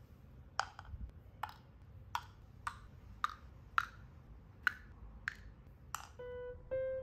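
Small pieces of pet treat dropped one by one into small cups, making about ten light, sharp clicks, roughly two a second. Near the end a few soft musical notes begin.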